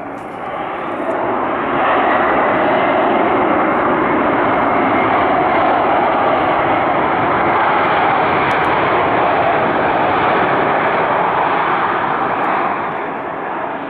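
Jet airliner engines, a loud steady rush of noise that builds over the first two seconds and eases a little near the end.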